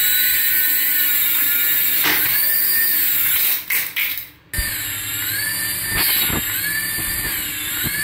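Small toy RC helicopter's electric rotor motors whining at high pitch, the pitch rising and falling repeatedly. The sound breaks off briefly about halfway through, then starts again.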